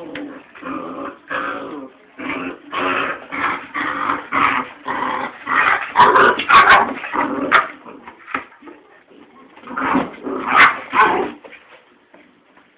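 Young puppies play-growling and yipping in a quick run of short calls, with sharper, louder yelps around the middle and again near the end before they stop.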